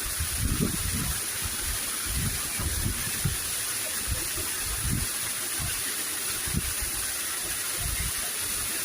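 Waterfall rushing in a steady roar of falling water, with irregular low rumbles under it.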